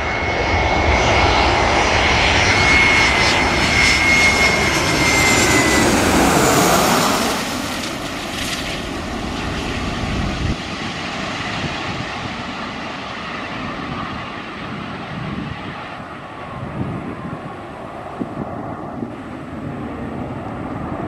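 Twin-engine jet airliner passing low on landing approach, its engines loud with a high whine that dips slightly in pitch, fading after about seven seconds. After a cut about ten seconds in, fainter jet engine noise from an airliner rolling out on the runway.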